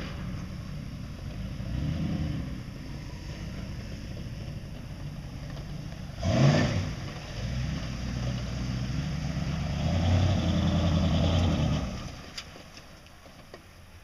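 Turbocharged old Ford pickup's engine, fitted with a Holset 67 mm turbo, running and revving as the truck drives. A short, loud burst with a hiss comes about six and a half seconds in. The engine pulls harder from about ten seconds, then drops away sharply near the end.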